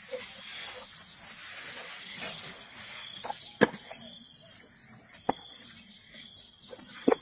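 A steady, high-pitched chorus of crickets and other insects, broken by three sharp clicks: the loudest about three and a half seconds in, one past five seconds, and a quick double click near the end.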